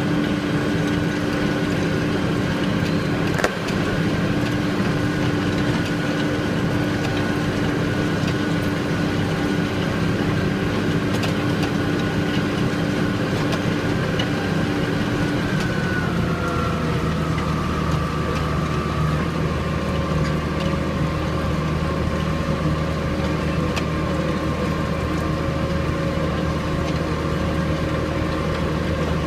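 A farm tractor's diesel engine running steadily while pulling a plough. Its note drops to a lower pitch about halfway through, and there is a single click early on.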